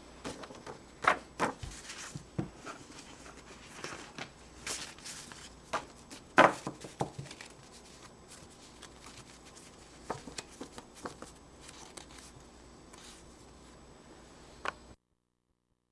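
Sheets of construction paper being handled, flexed and stacked: scattered rustles and light taps, the loudest about a second in and again midway, until the sound cuts off suddenly near the end.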